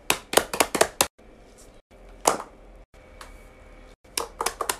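Fingers tapping on fidget toys and paper over a wooden floor: a quick run of sharp taps in the first second, a single tap in the middle and another quick run near the end, with short breaks of silence between.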